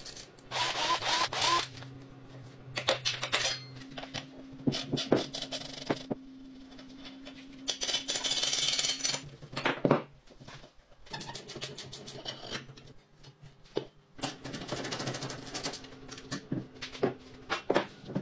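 Hand tools working on rusty mini dirt bike parts during disassembly: several bursts of rapid ratchet clicking as bolts are undone, with metal parts clinking and knocking, over a steady low hum.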